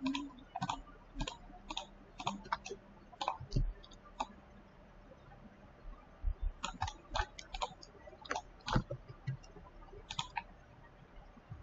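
Irregular clicking of a computer mouse and keyboard at a desk. The clicks come in two flurries with a pause of about two seconds between them.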